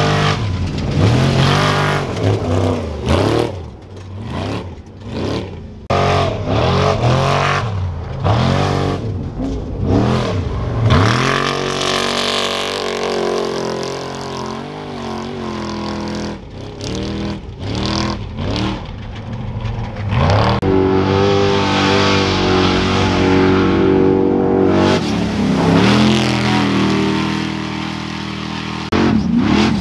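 Trophy Truck race engines revving hard as the trucks run past at speed, heard in a string of short cuts. The engine pitch swings up and down with throttle and passes, with longer stretches of steady high revs in the middle.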